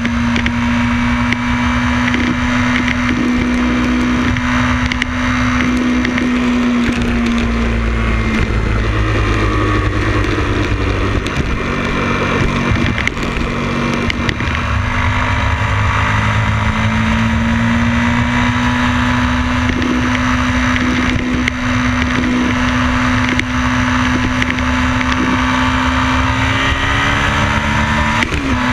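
On-board sound of a motorcycle engine running at road speed, with wind rushing over the bike. The engine note falls away around eight seconds in and rises back up a little past halfway through.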